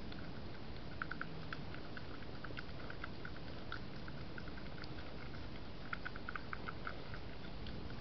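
European badger eating chicken from a food bowl: irregular small clicks of chewing and crunching, coming in bunches, over a steady hiss.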